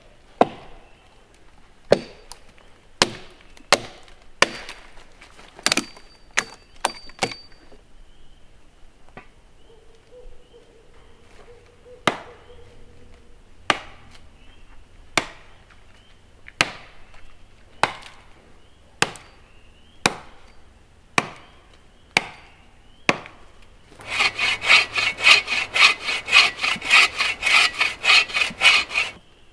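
Hatchet chopping wood with sharp single blows about once a second, pausing for a few seconds about a third of the way in. Near the end a hand saw cuts into a small tree trunk in quick strokes, about four a second.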